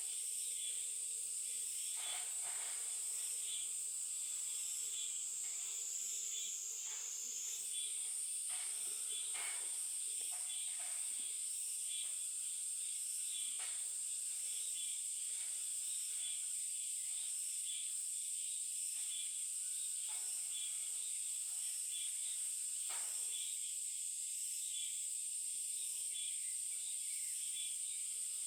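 Insects droning in a steady, high-pitched chorus that dips slightly in pitch for a couple of seconds about a quarter of the way in, with faint scattered chirps and ticks beneath.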